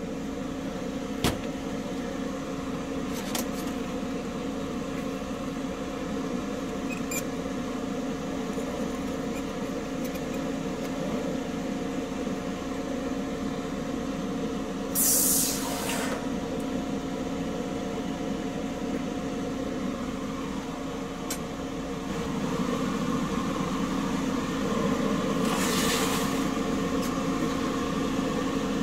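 Steady machine hum with a few fixed tones, broken by two short hisses: one about halfway through and one near the end.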